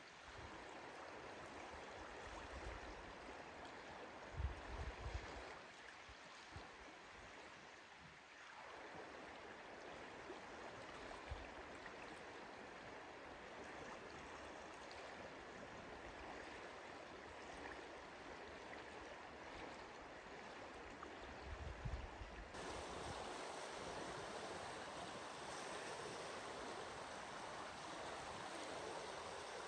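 The fast-flowing Lower Deschutes River rushing steadily, with a few brief low thumps. The rush gets louder about two-thirds of the way through.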